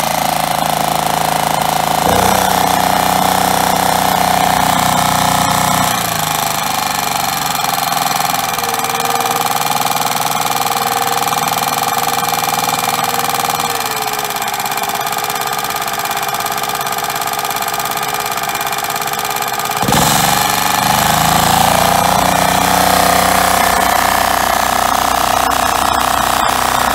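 Suzuki V270 four-stroke engine running steadily under its own power. Its speed drops about six seconds in and rises again about twenty seconds in.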